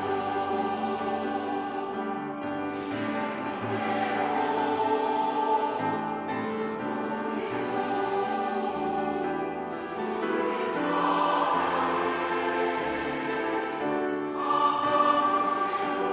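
Mixed choir of men and women singing an anthem in Korean, holding long sustained chords that swell and fall.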